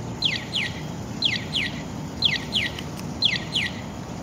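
Audible pedestrian crossing signal chirping: pairs of quick falling electronic chirps repeating at an even one pair per second, over a steady low city hum.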